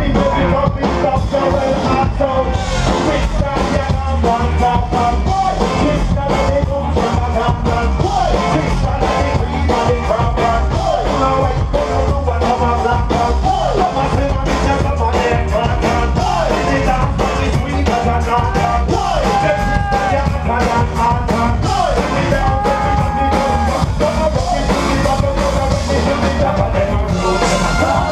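Live band playing dub/ska-style music with vocals and a steady heavy beat, heard loud from within the crowd.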